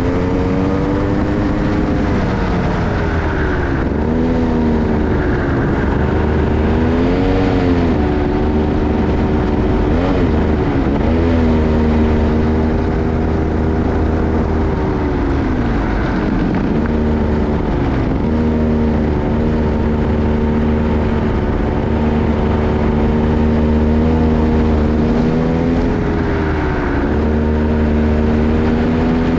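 Racing kart's single-cylinder engine heard onboard at speed, its pitch dropping as it slows for corners and climbing again as it accelerates out, several times over, with wind rushing past.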